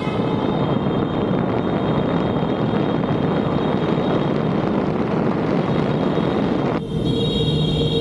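Steady rushing noise of a scooter ride: wind on the microphone mixed with the Vespa Primavera running. Near the end the rush eases and steady high tones come in.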